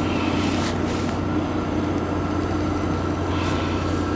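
Steady motor hum with a thin high whine over a rushing noise, with two brief hissy swells, about half a second in and again near the end.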